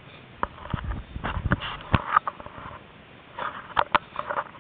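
Handling noise from a camera being moved about by hand: irregular rustling with several sharp clicks and low thumps, in two clusters.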